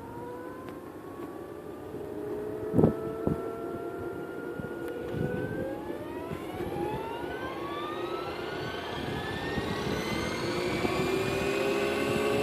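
Scale RC model AS350 Écureuil (AStar) helicopter spooling up. Its motor-and-rotor whine climbs steadily in pitch and grows louder, then settles near the end. There is a single sharp knock a little under three seconds in.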